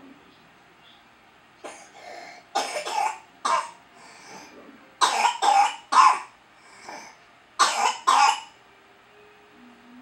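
A child coughing in three fits of a few coughs each: about four coughs, then three, then two.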